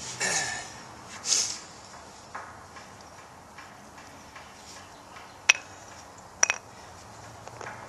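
Short pieces of wood handled on asphalt: two brief scuffs near the start, then two sharp wooden knocks about a second apart, the second one doubled.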